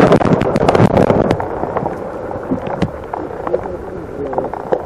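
Rushing water noise, loud for the first second and a half and then settling to a lower, steady rush, with scattered small clicks.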